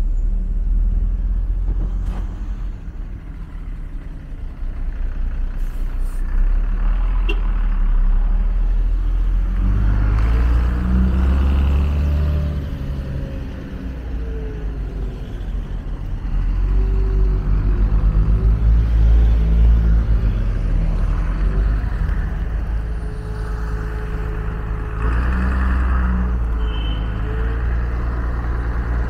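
City street traffic: car and truck engines running, a steady low rumble that grows louder several times as vehicles come close.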